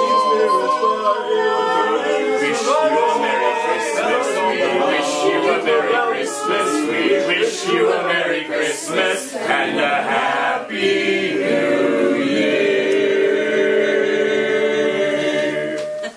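A mixed a cappella choir singing several Christmas carol melodies at once, the voices overlapping in a dense polymelody. About ten seconds in, the parts settle into long held notes, and the singing ends near the end.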